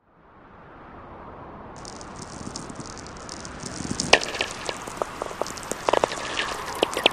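Crackling sound effect: a hiss fades in, and from about two seconds a dense high crackle joins it, with sharp snaps growing louder and more frequent toward the end.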